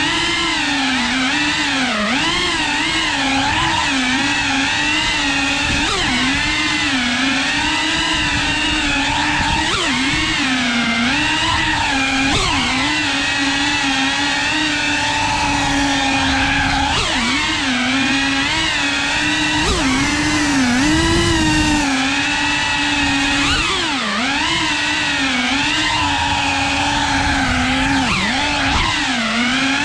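FPV quadcopter's electric motors and propellers whining loudly and continuously. The pitch dips and swells every second or two as the throttle changes, holding steadier for a few seconds at a time.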